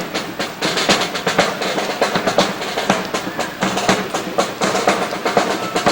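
Drum-led music with rapid snare drum rolls and bass drum beats, with no break.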